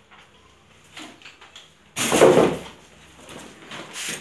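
Small knocks and clicks, then a sudden loud bang about two seconds in that fades out over most of a second.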